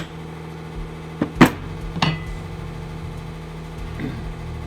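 A few sharp knocks and clinks of hand tools and hardware being worked, the loudest about a second and a half in, over a steady low hum.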